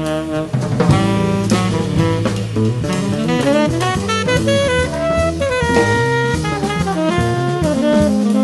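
Tenor saxophone playing a moving jazz melody line, backed by a drum kit with cymbals keeping time.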